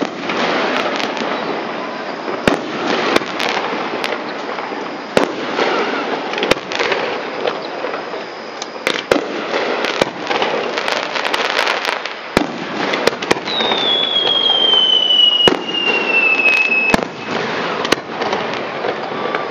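Fireworks display: aerial shells bursting with repeated sharp bangs over dense crackling. A little after the middle, a long whistle slides down in pitch for about three and a half seconds.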